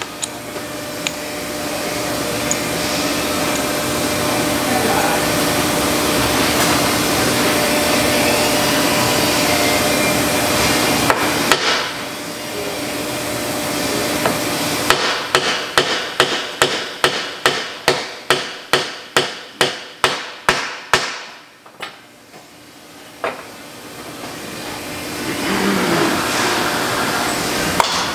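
Hammer striking a bearing driver to seat a new bearing into a Pottinger Terra Disk hub: a fast, even run of about fifteen blows, two to three a second, in the second half. A steady machine noise runs through the first half.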